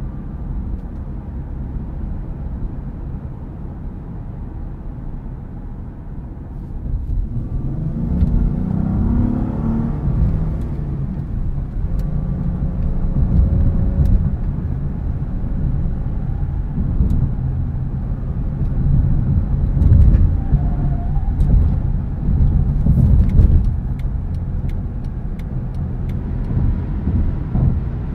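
Engine and road noise heard from inside the cabin of a 2013 Acura ZDX on the move, from its 3.7-litre V6. About eight seconds in the engine rises in pitch as the car accelerates, then runs on at speed under a steady road rumble. There are a few sharp clicks near the end.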